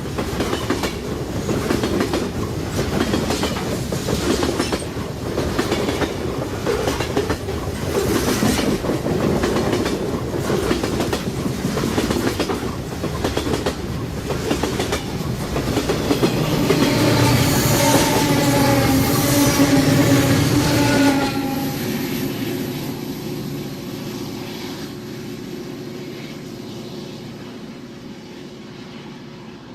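Fast freight train passing, its wheels clicking over the rail joints in an even rhythm. More than halfway through, the horn sounds for about four seconds and is the loudest part. After the horn cuts off, the train's noise fades away steadily.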